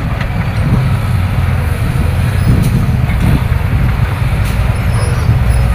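Heavy diesel engines of tracked excavators running in a steady low drone, with a couple of faint knocks.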